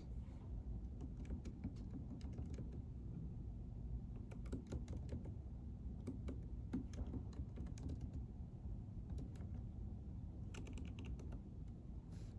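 Typing on a computer keyboard: a run of quick, irregular key clicks over a steady low room hum.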